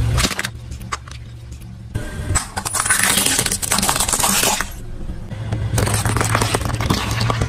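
Crackling and crunching of small objects being crushed under a car tyre, in three separate stretches of sharp snaps and clicks over a low rumble.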